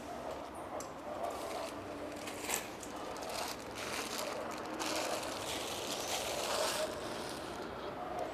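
Outdoor city background noise, a steady hum of distant traffic, with scattered light crackles and clicks.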